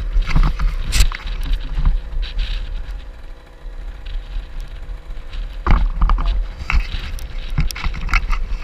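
Wind rumbling on the microphone of an action camera mounted on a motocross bike. Irregular knocks and rustles come as a hand handles goggles right at the camera, the loudest about a second in and near six seconds.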